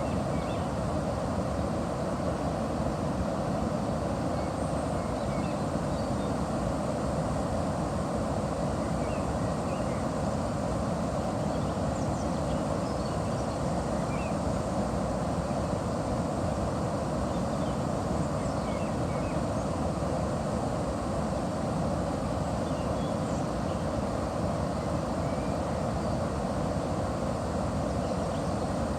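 River water rushing steadily at a watermill: an even, unbroken noise with no rise or fall. A few faint high chirps are scattered through it.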